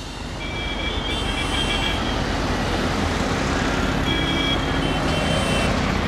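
Steady road traffic noise dominated by motorcycle engines running as a group of motorbikes rides past, with a strong low rumble. A high steady tone sounds twice over it, about a second in and again about four seconds in.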